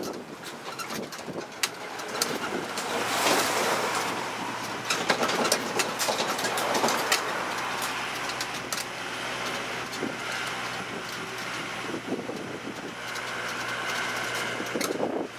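Tourist road train running along a street, heard from its open carriage: a steady low engine hum that sets in about two seconds in, with frequent clicks and rattles.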